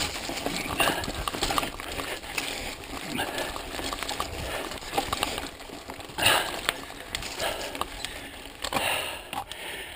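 Mountain bike rattling and clattering down a rough dirt trail: tyres on dirt, leaves and rocks, with a continual run of knocks from the bike over bumps, louder jolts about six and nine seconds in.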